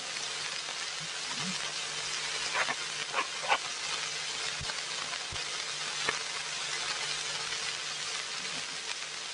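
Steady hiss and crackle from the surface noise of an early-1930s optical film soundtrack, with a faint low hum and a few sharp clicks around the middle. No music or voices.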